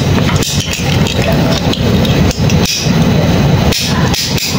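Hand wire crimper clicking and clacking several times as it is squeezed to crimp a brass terminal onto a thin wire.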